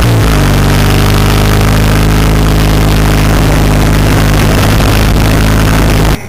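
Motorcycle engine running steadily under way on a mountain climb, heard loud from on board. Its pitch dips briefly near the start, then holds even, and the sound cuts off suddenly near the end.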